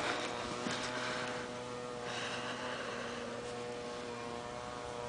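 A steady hum made of several fixed tones, as from a machine or electrical unit running.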